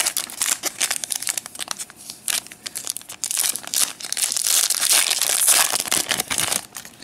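Foil wrapper of a trading-card pack crinkling and crackling as it is handled, then pulled open in a continuous rip of about three and a half seconds that stops sharply near the end.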